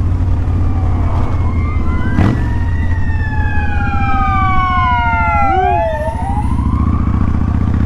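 An oncoming ambulance's siren sweeps up and down, its pitch dropping sharply as the vehicle passes about six seconds in. Underneath is the steady low running of a 2000 Kawasaki Vulcan 1500 Classic's V-twin engine under way.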